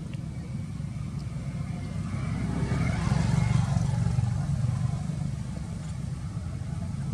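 A motor vehicle's engine rumbling as it passes, growing louder to a peak about three to four seconds in and then easing off.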